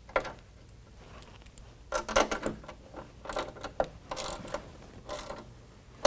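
Hand ratchet with a half-inch socket clicking through several short runs of strokes as it snugs down a serrated flange nut on a running-board bracket bolt.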